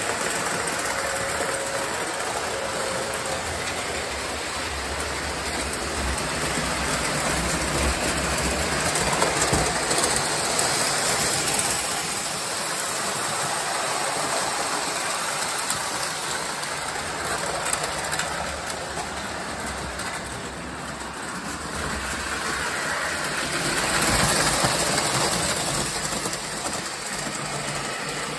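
O scale model trains running on the layout: a steady rumble and rattle of the trains on the track. It swells louder twice as the cars pass close by.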